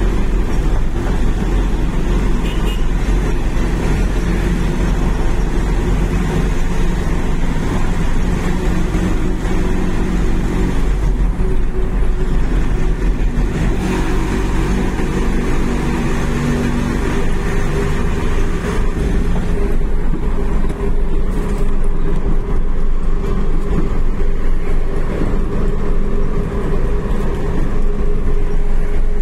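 Steady engine drone of a heavy road vehicle cruising at highway speed, with continuous tyre and road noise, heard from inside the vehicle.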